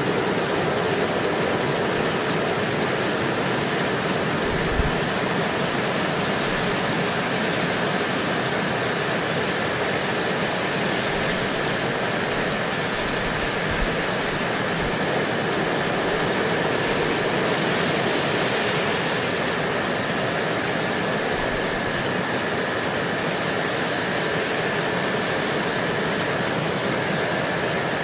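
Steady rain falling, an even hiss of rain with a faint steady high tone running under it.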